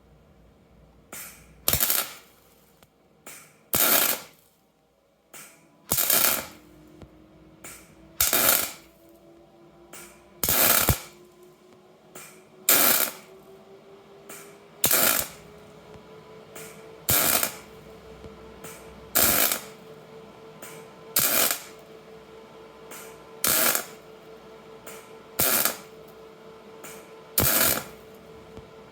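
Sharp metallic knocks with a ringing tail, repeating about every two seconds, over a faint steady tone that rises slowly in pitch and then holds.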